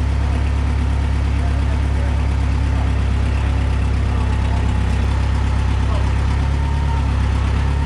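A large engine idling steadily, a low, even drone.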